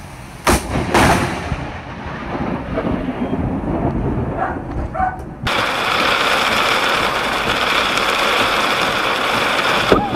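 Thunder from a close lightning strike: a sharp crack about half a second in, a second crack just after, then rumbling. About halfway through, a steady hiss of rain and road noise heard inside a car takes over, with another sharp crack near the end as lightning strikes just ahead.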